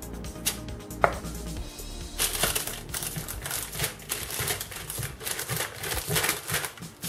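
Baking parchment crinkling and rustling under hands that press and pat crumbly coconut dough flat on a lined baking tray, in a run of irregular strokes from about two seconds in. A single sharp click about a second in.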